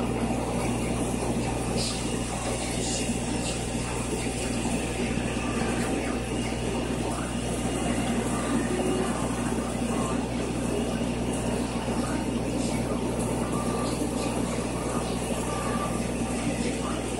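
Aquarium filtration running: a steady wash of flowing, splashing water over a constant low pump hum.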